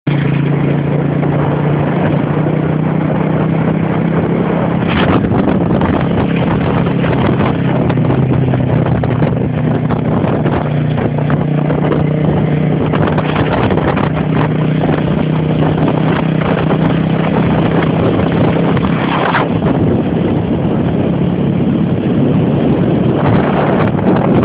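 Motorstar motorcycle engine running steadily, heard close up.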